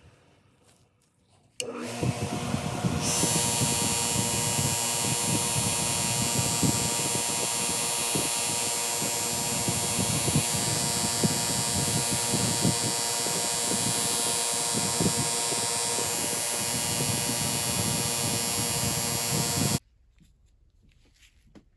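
Small high-speed electric power tool running steadily with a whine. It starts after a short silence, turns brighter and noisier about three seconds in, and cuts off suddenly near the end.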